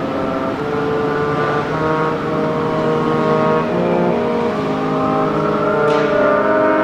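Brass ensemble of trumpets, French horn, trombones and tuba playing slow, sustained chords, with a passing vehicle underneath as a whine that rises and then falls in pitch.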